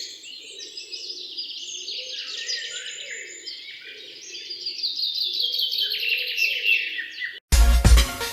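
Several songbirds singing and chirping at once, a dense, continuous chorus of trills. Near the end loud electronic music cuts in suddenly.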